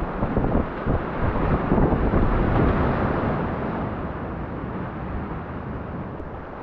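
Rushing whitewater of a river rapid around a kayak, with paddle strokes splashing; loudest through the first few seconds, then easing.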